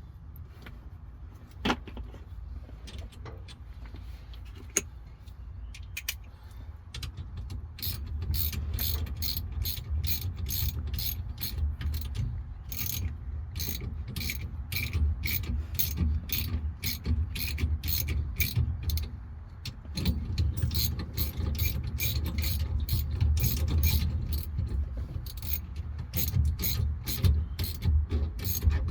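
Ratchet wrench clicking in a steady rhythm of a few clicks a second as it turns the bolts of a steering wheel puller. A couple of single metal knocks come first, and the ratcheting starts about seven seconds in, pausing briefly about two-thirds of the way through.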